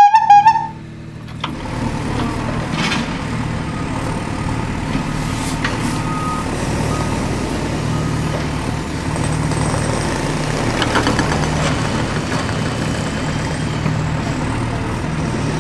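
A brief loud beeping tone, then a steady engine hum that runs on evenly.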